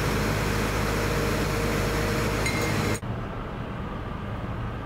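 Komatsu PC210-10M0 hydraulic excavator running close by: a steady low hum under an even noise, with a faint short clink near the end of it. About three seconds in the sound drops abruptly to a quieter, steady machine hum.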